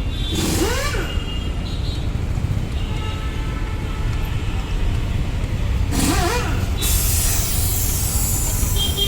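Street traffic outside a roadside shop: a steady low rumble of passing vehicles, with two brief rising squeals, one near the start and one about six seconds in, and a burst of hissing air from about seven seconds in.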